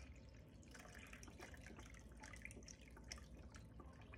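Faint trickling and dripping of chicken broth being poured cup by cup, with many small irregular splashes.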